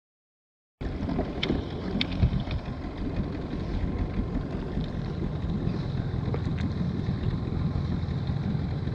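Wind rumbling on the microphone with water noise around a small inflatable boat, and a few light knocks between about one and two and a half seconds in. The first second is silent.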